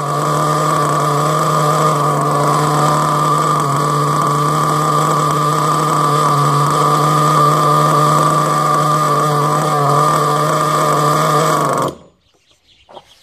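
Small nitro (glow-fuel) engine of a radio-controlled monster truck idling steadily, then cutting out suddenly about a second before the end: the engine stalls, as it tends to before it has warmed up.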